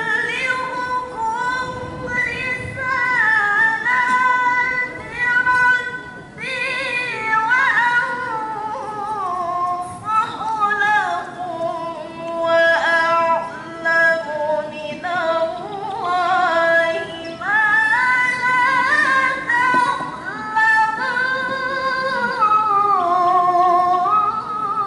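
A young woman reciting the Qur'an in melodic tilawah style into a handheld microphone. Long drawn-out phrases with ornamented pitch rise and fall, with short breaths between phrases.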